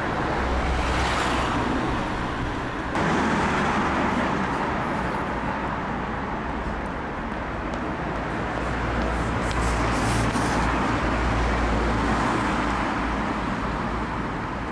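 Street traffic noise: a steady rumble of cars going by, with a car passing about a second in and again around ten seconds in.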